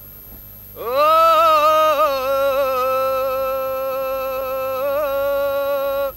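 A single voice singing one long held note without words. It slides up into the note about a second in, wavers slightly a few times, and cuts off near the end.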